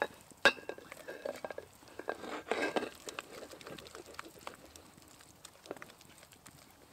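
A spatula stirring and scraping mashed potato around a frying pan, with soft scraping strokes and scattered small clicks. There is a sharp knock about half a second in.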